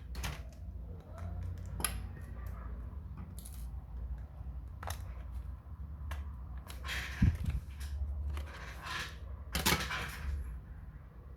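Irregular clicks and taps from small hard objects being handled, over a low steady hum.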